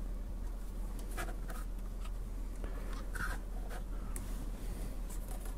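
Several short scratching and rubbing noises of hands handling a soldered hookup wire and small parts on a workbench, over a steady low hum.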